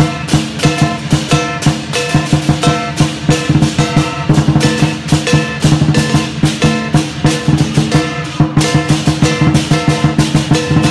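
Lion dance percussion: a Chinese drum beaten in a fast, steady rhythm with crashing cymbals and a ringing gong, accompanying the lion as it climbs onto the stands.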